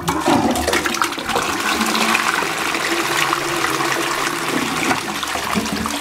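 A 2015 Balterley close-coupled toilet being flushed: water rushes suddenly into the bowl as the flush is pressed and keeps running steadily, easing slightly near the end.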